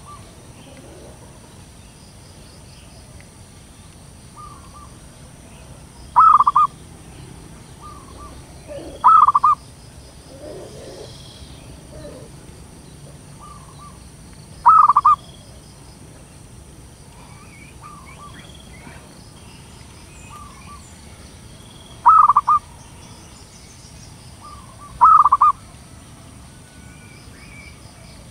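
Zebra dove calling: five loud short cooing calls spaced several seconds apart, with softer single coo notes in between.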